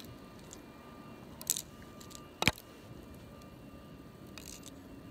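Handling noise from fingers sorting and straightening the thin wires of an Ethernet cable: a short crackle, then a sharp click about two and a half seconds in, and a fainter crackle near the end, over a low steady background noise.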